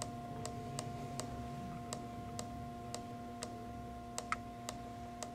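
Keypad button on a WEG CFW11 variable-frequency drive pressed over and over to scroll through its parameter menu: faint, evenly spaced clicks, about two to three a second, over a steady low hum.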